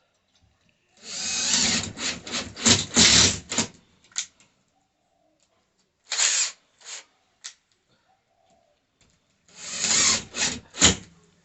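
Power drill run in three spells of short stop-start bursts while a smoke detector is being mounted.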